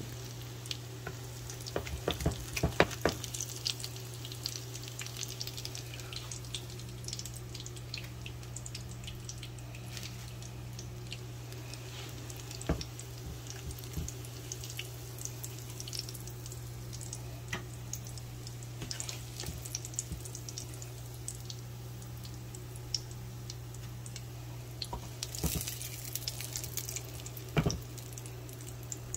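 Salmon fillets frying in hot oil in a nonstick skillet: a light sizzle with scattered crackling pops, over a steady low hum. Flurries of louder pops and scrapes about two to three seconds in and again near the end, as a spatula moves the fillets.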